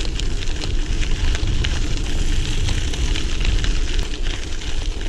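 Mountain bike rolling over a dirt trail: tyres crunching on the grit with scattered small clicks and rattles, under a steady wind rumble on the microphone.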